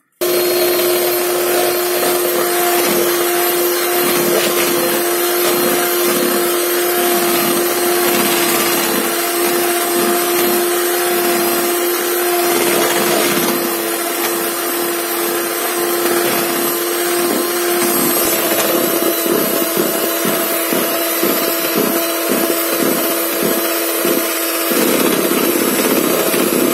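Electric hand mixer running steadily, its beaters whipping butter and powdered sugar into buttercream in a plastic bowl: a loud, even motor sound with one held pitch that starts abruptly and shifts slightly near the end.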